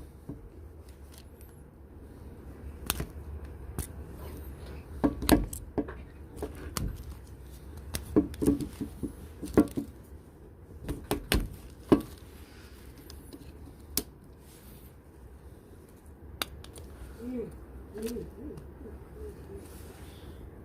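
Irregular small clicks, snaps and taps of a prying tool working around the plastic frame of a Samsung Galaxy M32 smartphone as it is opened, with a few sharper clicks in the middle.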